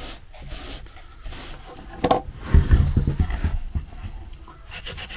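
Fine wire wool worked in a tin of wax, then dull knocks as a carved wooden piece is lifted and shifted on a wooden table. Near the end, quick rubbing strokes of waxed wire wool on the wood begin, knocking back the gilt colour on the pine.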